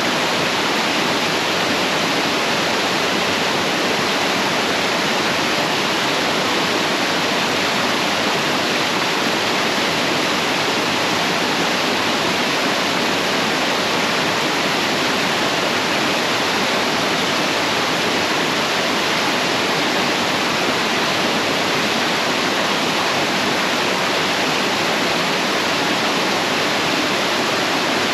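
Small mountain waterfall: water falling and splashing over rocks in a steady, even rush.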